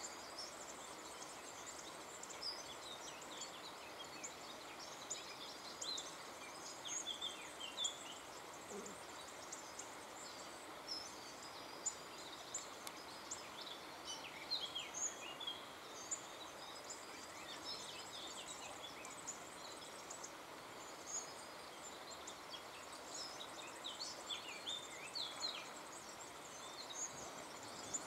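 Small birds chirping and twittering: many short, high chirps scattered throughout over a steady low hiss.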